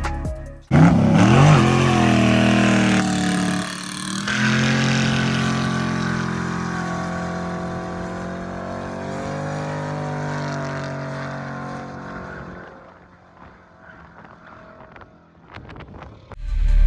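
LS V8 in a 1961 Chevrolet C10 pickup revving hard under acceleration: the engine note rises, breaks briefly about four seconds in, then carries on in a long pull that fades away about twelve seconds in.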